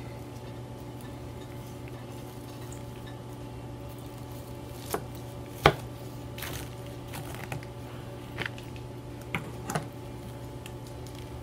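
Knife slicing through a smoked beef plate rib on a cutting board: soft cutting with several short knocks of the blade on the board, the loudest a little before halfway, over a steady low hum.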